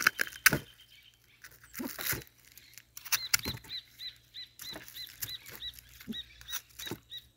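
Scattered knocks and clicks as the barbecued beef rib and its skewers are handled. From about three seconds in, a bird repeats a short high chirp about three times a second.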